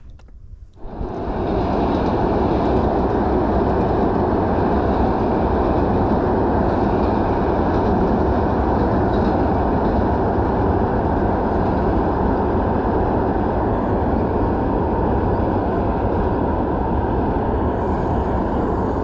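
An engine running steadily and loudly, coming in about a second in and holding unchanged.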